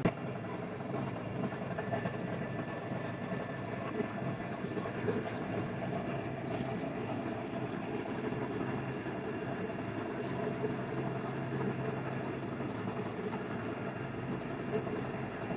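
Steady mechanical running noise: a constant hum with a wash of noise over it, unchanging, with no separate strokes or impacts.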